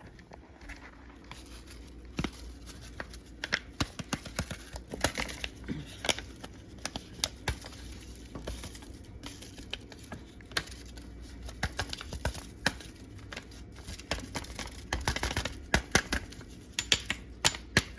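Seasonings being opened and shaken into a pot of stew: irregular crinkling, tearing and small clicks and taps from packets and shaker containers.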